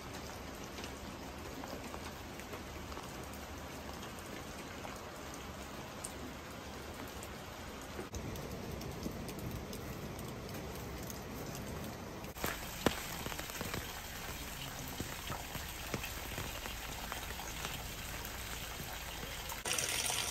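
Steady rain falling, with scattered sharper drop ticks.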